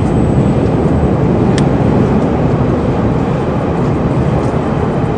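Wind buffeting the microphone: a loud, uneven low rumble, with a single faint click about one and a half seconds in.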